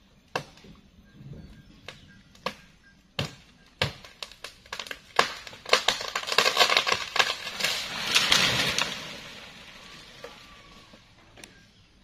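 Sharp woody cracks a few times, then a dense run of snapping and crackling as leafy teak limbs break away and fall through the foliage, fading after a few seconds.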